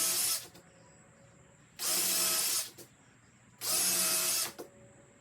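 Power drill boring pilot holes into 3/4 inch plywood, run in short bursts of under a second: one burst ends just after the start, then two more, with the motor spinning up at the start of each.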